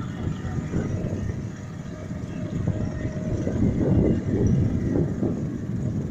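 Wind buffeting the microphone aboard a boat under way at sea: an uneven low noise that swells about halfway through.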